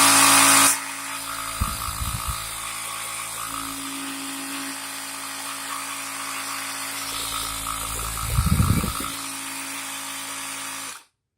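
Portable 12-volt tyre inflator's electric air compressor running off a battery: a steady motor hum, louder for the first second, with two brief louder knocks, cutting off suddenly near the end.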